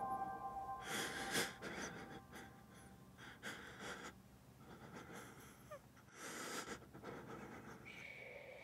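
A man's heavy, ragged breathing, the breaths coming about once a second and growing quieter after the first couple of seconds. A soft held tone of ambient music fades out just after the start and another comes in near the end.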